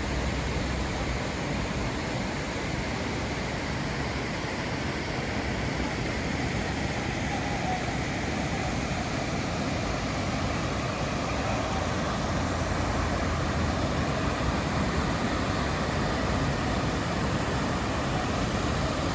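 River water rushing over rocks in a steady, unbroken rush.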